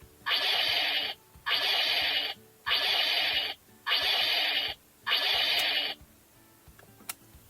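CSM Kamen Rider 1 Typhoon henshin belt playing one of its transformation sound effects through its small speaker: a run of even, hissing pulses about once a second, ending about 6 s in. A short click follows about a second later.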